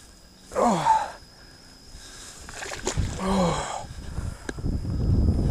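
A man's heavy, breathy exhales, two of them, each sliding down in pitch like a drawn-out "whew": he is winded after a long, hard fight with a big fish.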